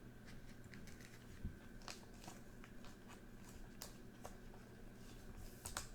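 Faint, scattered light clicks and ticks of trading cards being handled and slid one from another, over a low steady hum.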